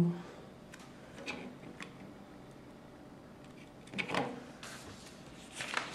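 Plastic LEGO bricks clicking and knocking as pieces are pressed onto a model car: a few faint taps, then louder clicks about four seconds in and again near the end.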